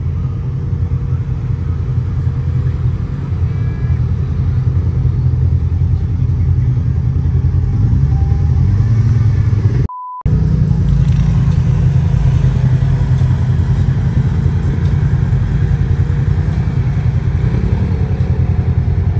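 Off-road vehicle engine running steadily under way, a loud low rumble that rises a little in pitch shortly before the middle. About ten seconds in, the sound cuts out briefly and a short single-pitch beep replaces it.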